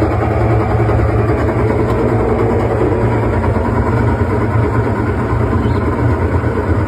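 Washing machine spinning at speed with a steady hum, running evenly on newly fitted shock absorbers.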